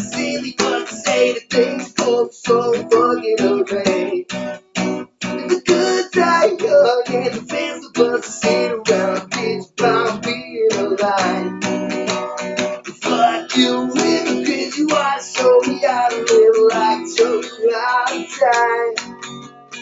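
Guitar strummed in a quick, continuous rhythm, chords ringing between the strokes.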